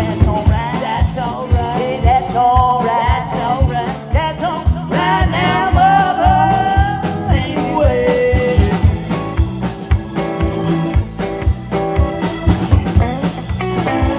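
Live band playing a blues-rock number: a steady drum beat under electric guitars and bass, with a sliding, bending lead line over the top.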